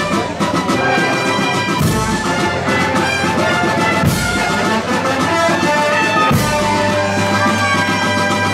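Brass band playing a march, with held brass chords and a bass drum and cymbal crash about every two seconds.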